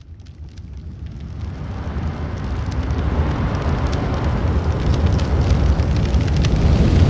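Sound effect of a large blaze: a low roar of flames with scattered crackling and popping, fading in from silence and growing louder over the first few seconds.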